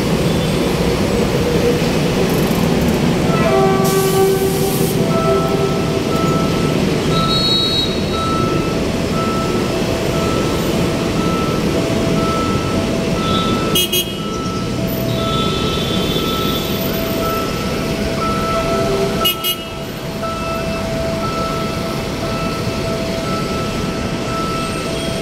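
Steady road traffic noise with a vehicle horn sounding once about four seconds in, then a reversing alarm beeping steadily a little faster than once a second. Two sharp clicks cut through partway along.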